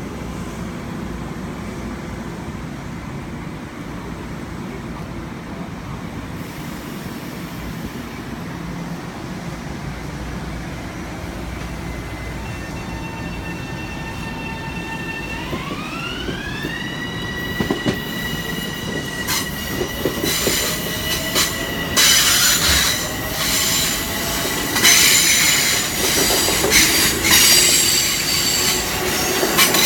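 Long Island Rail Road M7 electric train approaching, a steady low rumble at first. About halfway a high squeal of the wheels on the curve rises in pitch and holds. It is followed by clicks over the rail joints and loud bursts of wheel squealing as the train enters the station.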